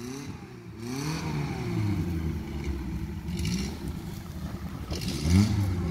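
Suzuki 4x4 jeep engine revving up and down in repeated surges under load as it climbs a steep, loose dirt slope, with a sharper rev near the end.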